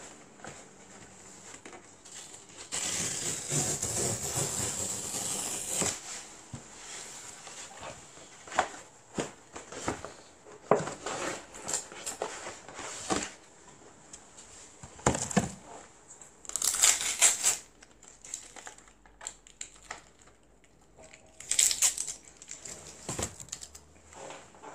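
Packaging being handled and unwrapped: irregular crinkling and rustling with scattered clicks and knocks, louder in a few stretches of a second or more.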